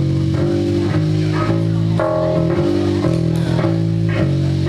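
Live blues band playing a song's opening: electric guitars and bass guitar repeat a low riff together.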